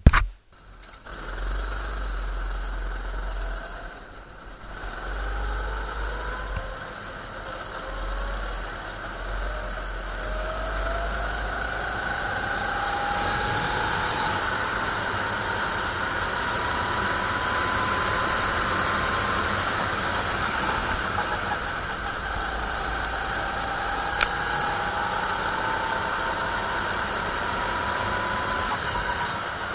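A rental kart's 270 cc four-stroke engine running as the kart is driven round the track. Its pitch climbs slowly on the straights and drops back for the corners. There is a sharp click right at the start and a smaller one near the end.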